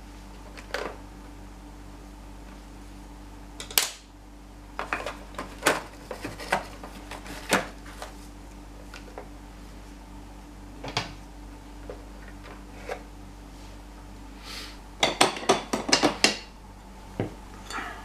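Parts of an old upright vacuum cleaner's base, including the brush roller, being lifted out and handled: scattered hard knocks, clicks and rattles, with a quick run of clatters near the end.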